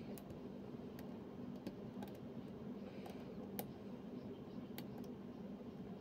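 Lock pick working the pins of a six-pin Yardeni euro profile cylinder under a tension wrench: light, irregular metallic clicks spaced a second or so apart, the sharpest about three and a half seconds in, over a steady low hum.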